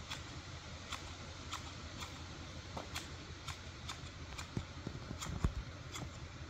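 High-heeled boots stepping on a hard surface, a sharp heel click about twice a second in an even walking rhythm, with a few duller thuds a little past the middle.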